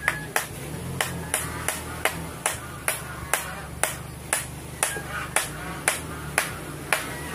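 Hammer tapping a nail into a wooden stock, about two sharp blows a second at a fairly even pace.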